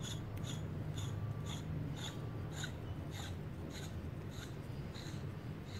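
A quick-change hydraulic coupler being screwed by hand onto the port of a 12-ton hydraulic cylinder: soft rubbing of metal threads. Under it runs a steady low hum, and a short high chirp repeats about twice a second.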